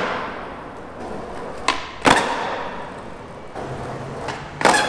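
Skateboard with titanium trucks doing two flatground tricks: each time a sharp tail snap on concrete and, a fraction of a second later, a louder slap of the board landing. Wheels roll on concrete in between. The hits ring out with the echo of a concrete parking garage.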